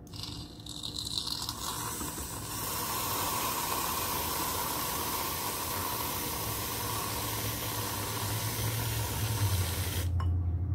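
Aerosol can of whipped cream spraying: a long, steady hiss of about ten seconds that cuts off suddenly.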